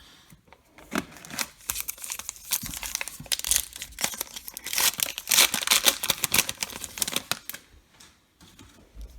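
A baseball card pack's wrapper being torn open and crinkled: dense crackling and rustling that starts about a second in, is loudest past the middle, and dies down near the end.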